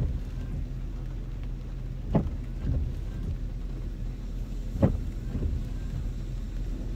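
Car idling with a steady low hum, and the windshield wipers sweeping with a short thump every two and a half seconds or so, the loudest about two thirds of the way in.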